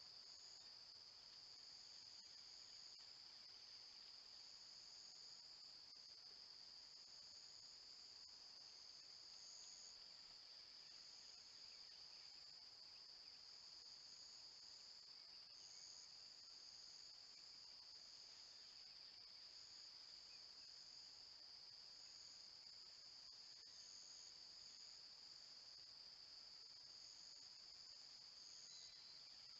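Faint insect chorus: a steady high-pitched trill with a higher buzz above it that swells and fades every second or so.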